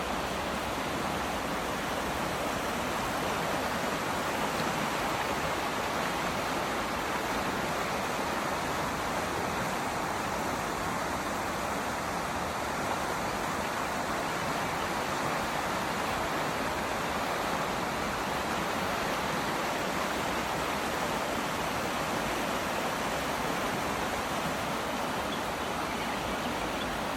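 A river running high after heavy rain, its water rushing steadily.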